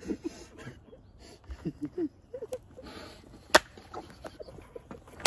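Short bursts of laughter, then a single sharp slap about three and a half seconds in, typical of a tortilla smacking a face in the tortilla challenge.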